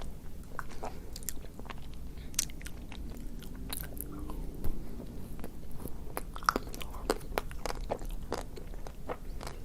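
Close-miked eating of a chocolate-coated ice cream bar: irregular crackling bites through the chocolate shell and wet chewing and mouth clicks.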